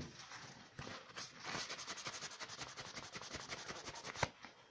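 Paper towel rubbed quickly back and forth over a small etched copper circuit board, wiping it clean with ethanol: a faint run of rapid, even scrubbing strokes, with one sharper tap near the end.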